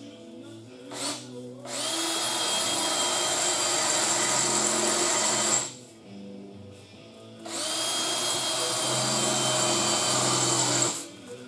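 Power drill boring into the steel sheet metal of a Triumph TR3 inner rocker panel, in two bursts of about four seconds each with a steady high whine over a hiss. The bit is dull and in need of sharpening.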